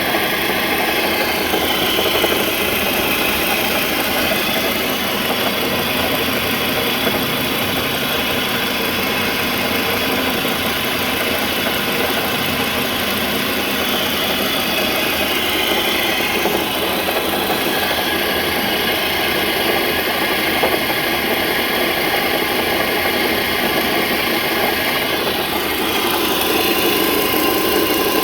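2006 Volvo XC90 T5's turbocharged five-cylinder engine idling steadily with an unusual noise mixed in, a sound that the owner has checked the pulleys and belts for and found them in order.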